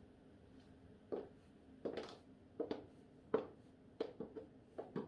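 Footsteps in high heels: a run of short, irregular knocks on the floor, one or two a second, starting about a second in.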